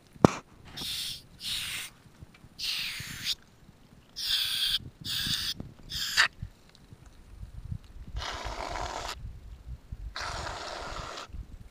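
Aerosol whipped-cream can hissing in about eight short bursts as a macaque works the nozzle with his mouth and hands to spray cream out, with a sharp knock just after the start.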